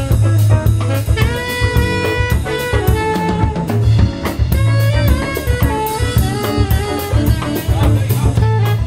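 Live jazz band: a saxophone plays a melody of held notes over a drum kit and electric guitar, with steady drum and cymbal hits throughout.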